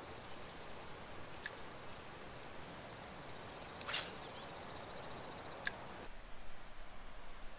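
Casting a spinning rod: a swish of the rod and line about four seconds in, with a fast, fine ticking around it. A sharp click follows shortly after the cast.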